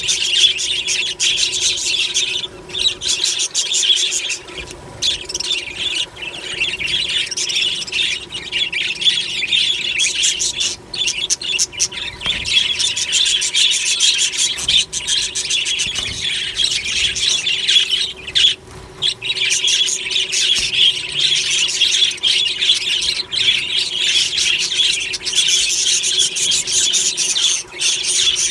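Budgerigars chattering and chirping nonstop, many rapid high warbles and chirps overlapping, with brief lulls about three seconds in and again about eighteen seconds in.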